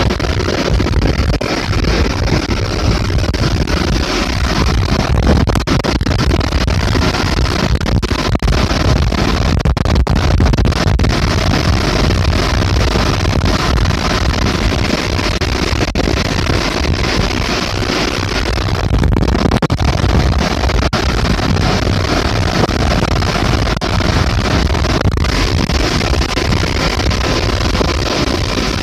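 Loud, steady rumble and rush of a ferry under way at sea: the ship's engine and the churning wake alongside the hull, with wind on the microphone.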